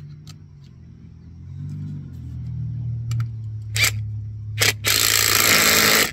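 Cordless power driver with a socket bit, run in two short blips and then a steady burst of about a second, tightening a loose bolt on an ATV winch mount.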